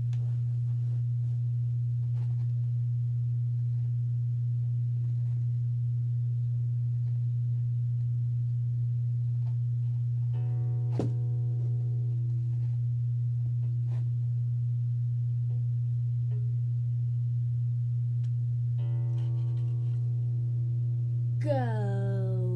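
A loud, steady low hum tone, with two held pitched notes, one about halfway through and one near the end, and then a falling swoop in pitch just before the end.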